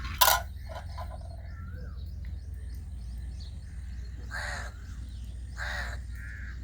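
Crows cawing: one loud, harsh caw right at the start, then two more about a second and a half apart in the second half, with fainter bird chirps between them over a steady low rumble.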